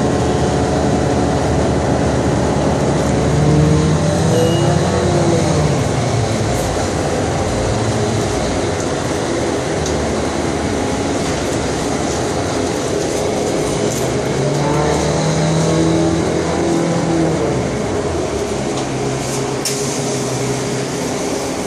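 Steady engine and road noise inside a moving city bus, with the engine's low hum rising and falling twice as the bus changes speed.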